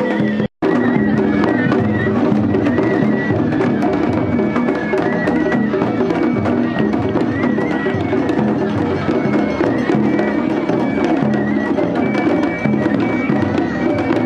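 Japanese festival hayashi music: drums struck in a busy, continuous rhythm under a high, held flute melody. The sound drops out for an instant about half a second in.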